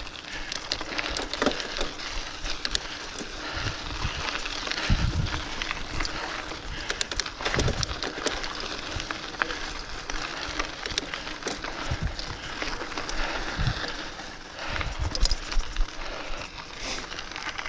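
Mountain bike riding down a dirt singletrack: tyres rolling over dirt and stones, with many sharp clicks and rattles from the bike and occasional low thumps.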